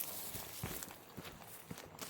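Footsteps of a person walking: several soft, dull steps, with a brief hiss right at the start.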